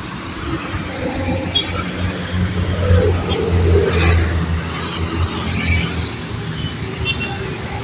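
Road traffic going by: motorcycles and cars passing on the road, a low engine hum that swells in the middle and then eases.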